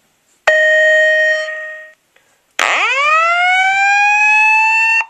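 Two Wheelock ET-1010-WS-24 fire alarm speakers playing the alert tones of a Simplex voice-evacuation message. There is one steady chime note that fades out, then about two and a half seconds in a whoop that rises in pitch, levels off and cuts off suddenly near the end.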